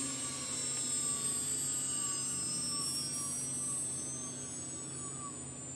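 Three-phase woodworking CNC spindle motor (2.2 kW, 24,000 rpm, 400 Hz) winding down on its inverter's deceleration ramp after being stopped, a high whine falling slowly in pitch over a steady low hum.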